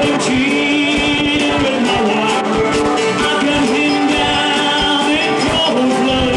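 Live acoustic band playing: strummed guitars under a held, wavering lead melody.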